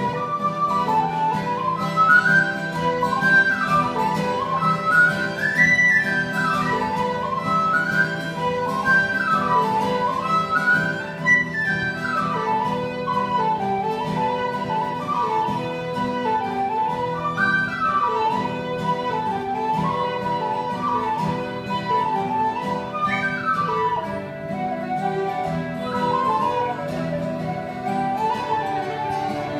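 Irish traditional tune played live on tin whistle, fiddle and acoustic guitar: a quick, ornamented whistle melody rising and falling over the fiddle and steady guitar accompaniment.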